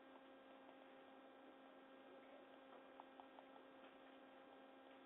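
Near silence: a faint steady electrical hum, with a few faint ticks a few seconds in.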